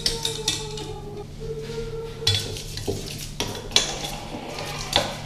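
A spatula scraping and clinking against a small steel pan while stirring melted chocolate, in short irregular strokes.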